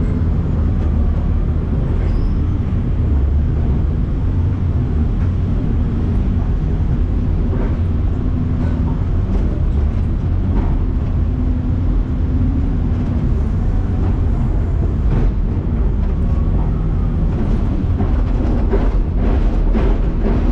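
Heavy construction machinery working: a steady, loud low engine rumble, with scattered knocks and clanks that come more often near the end.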